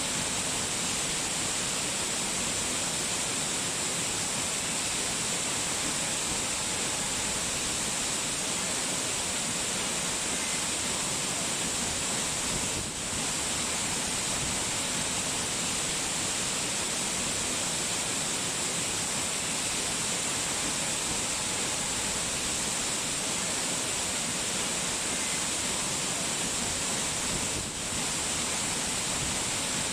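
Steady rushing water noise, even and unbroken, with a strong hiss. It dips briefly twice.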